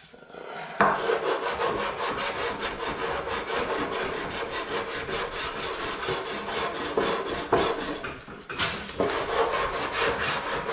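Hand sanding plywood with sandpaper on a wooden sanding block: rapid back-and-forth rubbing strokes, starting about a second in, with a short pause near the end.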